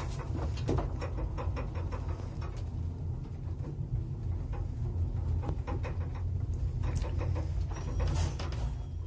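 Old 1977 Zremb passenger elevator car travelling upward: a steady low rumble with rattling and clicking from the car, and a denser run of clicks about eight seconds in as it nears the top floor.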